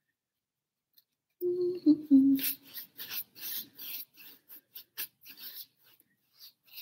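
Paintbrush loaded with wet acrylic rasping across a stretched canvas in quick side-to-side strokes, about two to three a second. A brief two-note hum from the painter comes just before the strokes.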